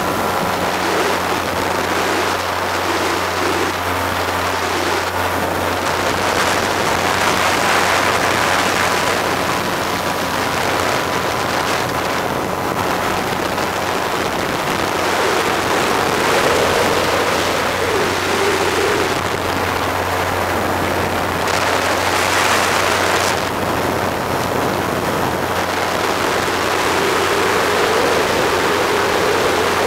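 Steady drone of a small aircraft's engine with wind rushing over the microphone in flight; the wind noise swells a few times.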